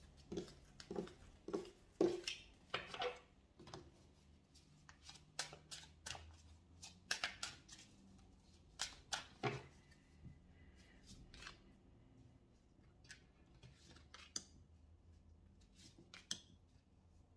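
Tarot cards being gathered up, shuffled and dealt onto a table: a run of soft, irregular card taps, slaps and flicks, thickest in the first few seconds and more scattered after.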